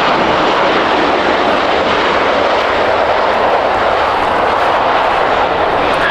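Jet airliner engines running loud and steady: a broad rushing noise with no clear pitch.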